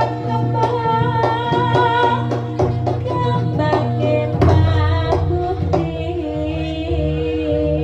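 Live Javanese jaranan music: hand drums beat a quick, dense rhythm under a steady held tone, with a wavering melody line above.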